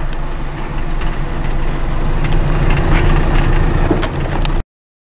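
Cabin noise of a vehicle driving slowly: engine and tyre rumble with a few small knocks and rattles, cutting off abruptly near the end.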